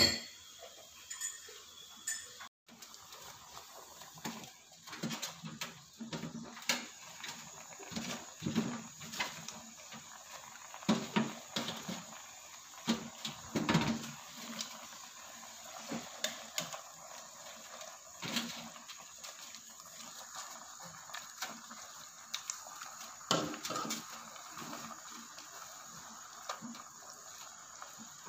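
Fish and pumpkin soup boiling in an aluminium pot, with scattered knocks and rustles as leafy greens are pushed into the pot by hand. Near the end a metal ladle clinks against the pot while stirring.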